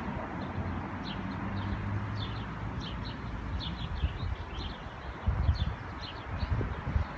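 Small birds chirping in short, high, repeated notes, a few each second, over a low rumbling on the microphone.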